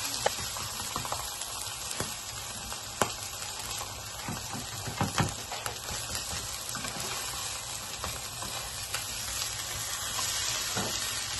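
Quesabirria, a tortilla filled with mozzarella and birria meat, sizzling steadily as it fries in oil in a nonstick frying pan. A few sharp clicks of the slotted spatula against the pan come through the sizzle, mostly in the first half.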